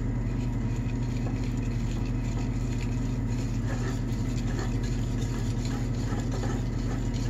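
Wire whisk beating pancake batter in a ceramic bowl, with soft stroking and scraping, over a steady low mechanical hum that is the loudest sound throughout.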